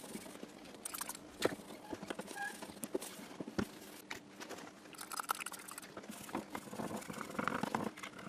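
Handling and tool noise from hands-on work on an acoustic guitar: irregular small knocks, clicks and taps, with a few short stretches of rubbing or scraping.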